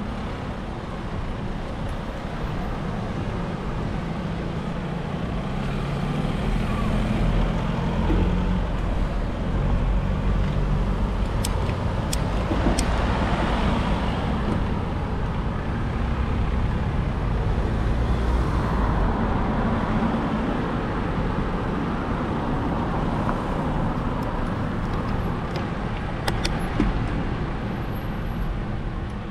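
Street traffic: motor vehicles running and passing, swelling louder twice around the middle, with a few sharp clicks.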